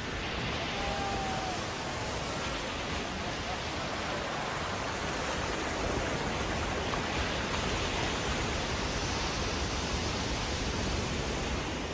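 Heavy ocean surf breaking and churning over rocks, a steady rush of white water.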